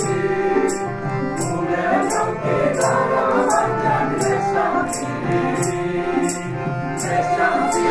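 Background music: a Nepalese song with singing over a steady percussion beat, about one jingling hit every two-thirds of a second.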